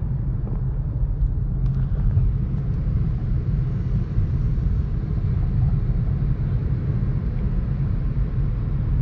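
Steady low rumble of a car driving at highway speed, heard from inside the cabin: engine and tyre noise.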